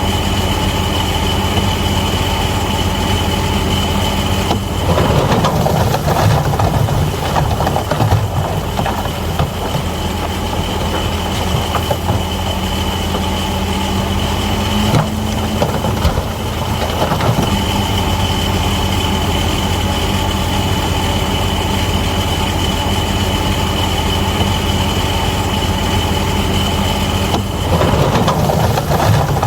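Bulldozer diesel engine running steadily with a high, steady whine above it. The sound grows louder and rougher three times: about five seconds in, around sixteen seconds, and near the end.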